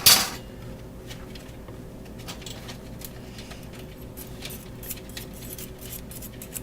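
A fork stirring a thick cream-cheese mixture in a metal bowl, making light, irregular metallic clicks and scrapes against the bowl. A brief loud noisy burst right at the start.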